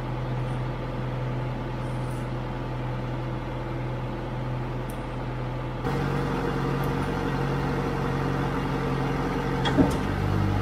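An engine running steadily at a constant speed. About six seconds in it gets suddenly louder and brighter, and a single sharp knock sounds near the end.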